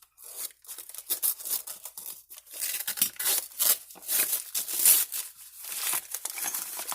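Packing wrap being torn and crinkled by hand as a wrapped item is opened: a run of irregular crackling and tearing, busiest in the middle.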